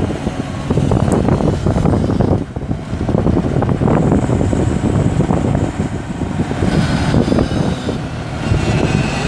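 Komatsu PC250LC excavator's six-cylinder diesel engine running steadily; the engine is listed as having a blown head gasket.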